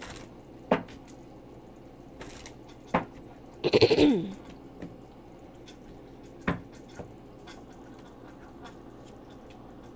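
Tarot cards being handled and set down on a table, with a few sharp taps. Near the middle comes a louder, brief sound whose pitch falls.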